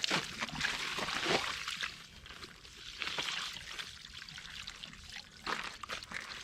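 Water splashing and trickling in short, uneven spells, loudest over the first couple of seconds and again briefly about three and five and a half seconds in.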